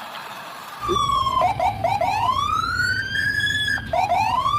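Electronic wailing siren from a toy vehicle, starting about a second in: a tone that wavers briefly, then sweeps slowly up in pitch and starts over, with a low rumble beneath.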